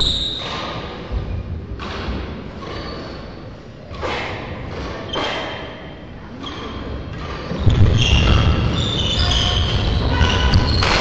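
Sports-hall sounds of badminton play: sharp knocks about a second apart from rackets and feet on the court, echoing in the large hall. The last few seconds grow louder with heavier thuds of footwork and short high squeaks of shoes on the court floor.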